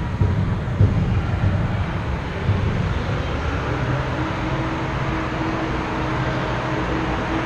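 Steady low rumble of ice-rink background noise, with a faint steady hum coming in about four seconds in.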